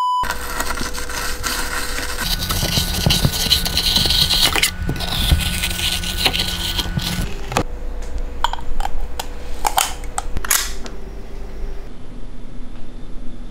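Sped-up clatter of a metal ice cream scoop scraping and chipping at hard-frozen gelato in a metal tray: a dense, unbroken run of scrapes and clicks.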